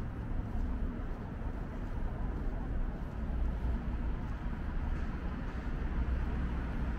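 City street ambience: road traffic making a steady low drone with an even hiss above it, no single event standing out.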